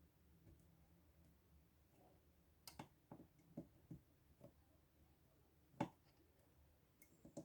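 Near silence, broken by a scattering of faint clicks and light knocks from small hard objects being handled, the loudest a single knock about six seconds in.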